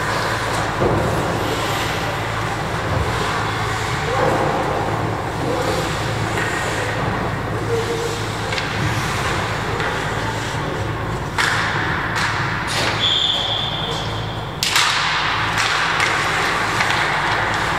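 Sounds of a youth ice hockey game in an indoor rink: skates scraping the ice and a few sharp knocks of sticks, puck or players against the boards, over a steady arena hum. A short high steady tone sounds near the middle.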